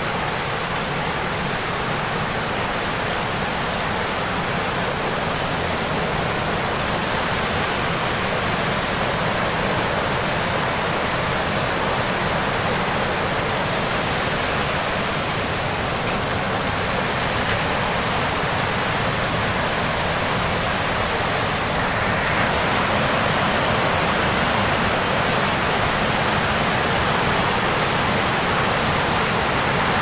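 Steady rushing of a fast-flowing stream pouring over rocks and small weir cascades, a little louder from about two-thirds of the way through.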